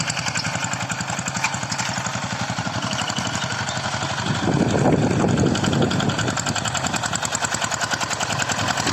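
Two-wheel hand tractor's single-cylinder diesel engine running steadily while ploughing, with a fast, even chug. About halfway through, a louder, rougher surge lasts a second or two.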